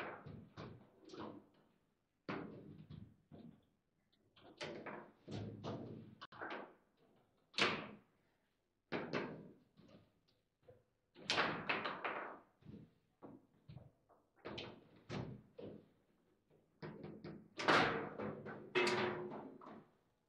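Table football play: irregular sharp knocks and clacks as the players' rods and figures strike the ball and the table, some coming in quick runs, with brief silent gaps between.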